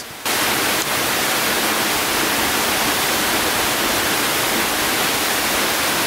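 Steady rush of a creek waterfall close by: an even, loud hiss spread across low and high pitches, with no rhythm, cutting in abruptly about a quarter second in.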